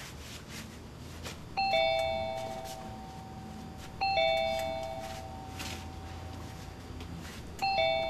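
Electric doorbell chime ringing a two-note ding-dong three times, a few seconds apart, as its wall button is pressed. Each ring is a higher note followed at once by a lower one that rings on and fades.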